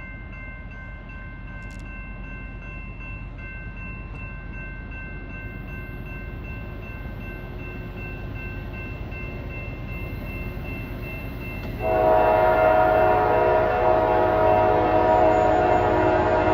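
Diesel freight locomotive approaching with a slowly rising rumble and a few faint steady high tones, then about twelve seconds in its air horn sounds one long, loud blast that is still going at the end.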